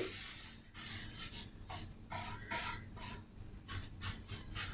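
Paintbrush strokes applying furniture paint to a wooden nightstand: a string of short, irregular swishes, two or three a second.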